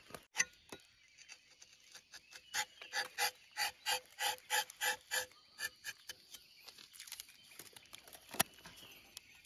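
Rubber-tapping knife cutting along the tapping panel of a rubber tree, shaving off a thin strip of bark. A sharp click near the start, then about two and a half seconds in a run of about ten short squeaky pulses, about four a second, and another sharp click near the end.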